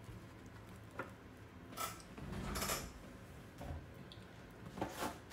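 Handling noises as objects are moved about on a table: a click about a second in, a scraping rustle around two to three seconds in, and a few light knocks near the end.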